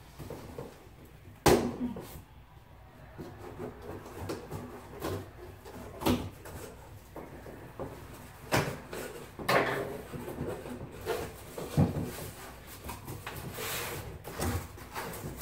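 Cardboard shipping box being handled and opened by hand: a run of separate knocks and scrapes, the loudest a sharp knock about a second and a half in.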